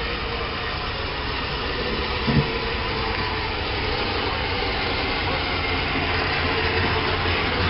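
Sentinel steam waggon driving slowly past: a steady rumble and hiss from the steam engine and running gear, growing louder as it draws near, with a short knock about two seconds in.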